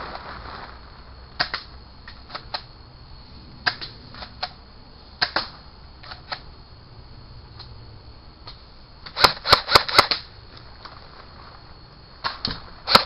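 Airsoft guns firing: scattered single sharp cracks, then a quick string of about five shots around nine seconds in, and a few more near the end.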